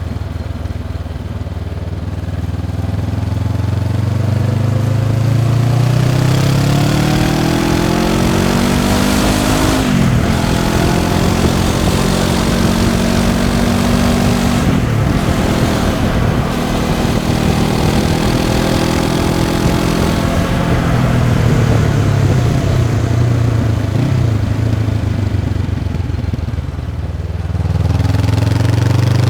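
Honda CB500X's parallel-twin engine through its stock exhaust while riding: the revs climb, drop sharply at gear changes about ten and fifteen seconds in, climb again, then ease off as the bike slows.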